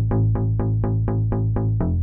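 Electronic background music: a quick, even pulse of short synth notes, about eight a second, over a held bass note that drops to a lower note near the end.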